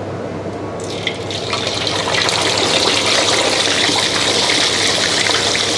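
Hot oil sizzling as a sea bass fillet goes into the deep fryer. The sizzle breaks out about a second in and builds into a steady crackling hiss.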